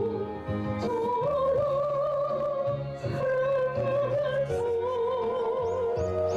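Korean gospel song music: a slow melody in long held notes with a wide vibrato, over a steady bass accompaniment.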